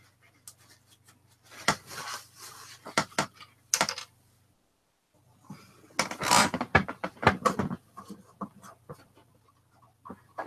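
Paper tissue rustling and crumpling in the hands while excess superglue is wiped off a cork float, in irregular bursts with a few light clicks and knocks. The sound cuts out completely for about half a second midway.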